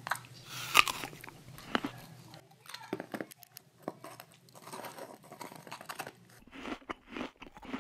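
A dog biting and chewing a frozen watermelon-carrot dog treat, a run of irregular crunches as the ice breaks up between its teeth.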